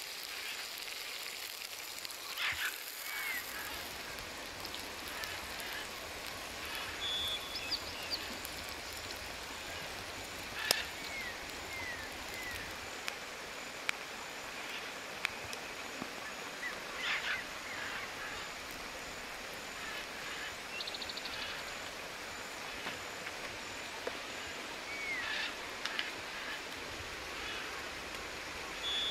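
Wild birds calling every few seconds: short down-curving whistles and quick chirping trills over a steady hiss, with an occasional sharp click.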